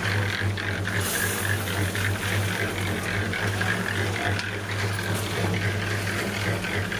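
Concrete mixer running: a steady low motor hum with continual rattling and clicking from the turning drum, and a brief hiss about a second in.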